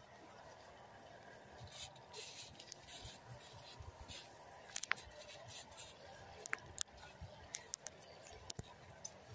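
Faint rustling and scraping of rice plants brushing against a spray lance and a person wading through the crop, with short hissy bursts in the first few seconds and scattered sharp ticks later on.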